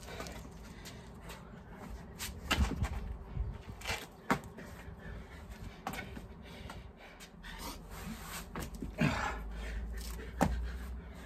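A person doing burpees on an exercise mat over paving slabs: scattered thuds and slaps as hands and feet land, with a few sharper knocks spread through the seconds.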